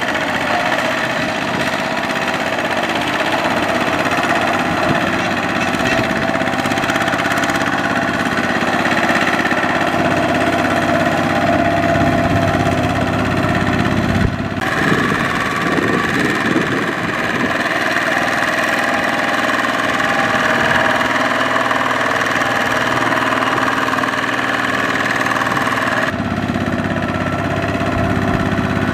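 A two-wheel walking tractor's single-cylinder diesel engine runs steadily under load, close by, pulling a trailer of rice sacks through soft muddy stubble. The sound changes abruptly twice, about halfway and near the end.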